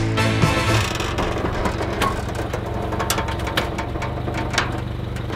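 Forklift engine running, with scattered sharp metallic clicks and knocks as its forks work through a pickup truck's cab.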